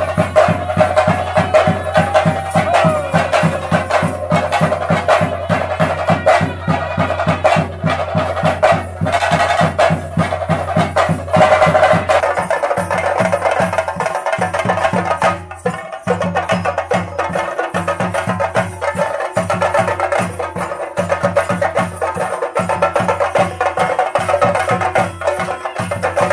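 Traditional percussion music: drums beaten in a fast, even rhythm with a held melodic line above them. About twelve seconds in, the drum pattern changes to more separated strokes.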